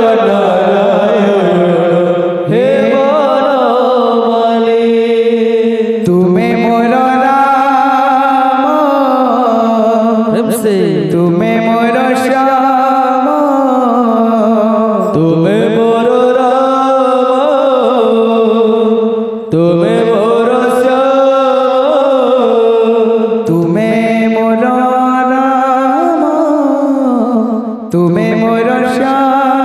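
A man singing a devotional kirtan melody into a microphone, in long drawn-out phrases of a few seconds each, his held notes bending up and down.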